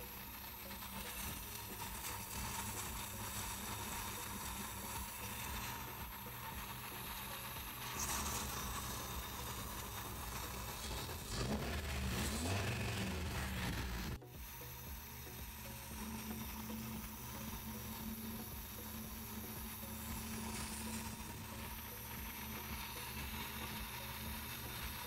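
Toyota 22RE four-cylinder stroker engine running on a Haltech Sprint 500 fuel-injection conversion, idling steadily and running well. Its revs rise and fall as the throttle is opened briefly about eleven seconds in.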